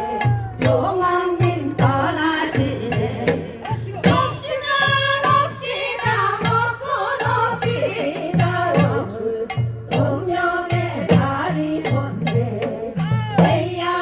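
A group of women singing a Korean folk ritual song through microphones, with a drum keeping a steady, even beat underneath.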